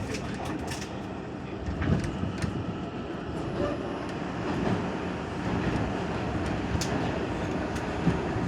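R142 subway car riding underground, heard from inside the car: a steady rumble of wheels on rail with a few sharp clicks, and a faint high steady whine entering about three seconds in.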